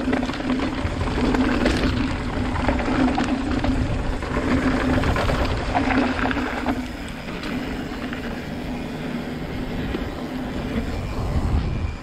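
Mountain bike rolling fast down a dirt trail: knobby tyres crunching over dirt and stones, the bike rattling over bumps, and wind on the camera, with a steady freehub buzz from the rear hub while coasting that fades about halfway through.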